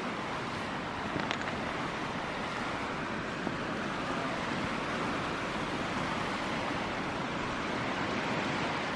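Steady wash of small waves on the lakeshore, with some wind.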